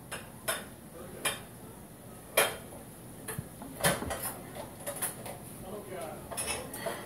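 Scattered sharp clicks and knocks of kitchen items being handled: a plastic syrup bottle worked in the hands and set down on the counter near the plates. The loudest knock comes about two and a half seconds in.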